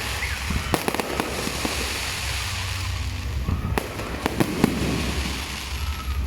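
Fireworks going off: scattered sharp bangs and pops, with a spell of crackling hiss in the middle, over a steady low rumble.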